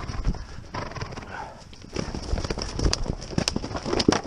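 Horse's hooves drumming on turf at a canter or gallop: a run of irregular dull thuds that come thicker and louder from about halfway through.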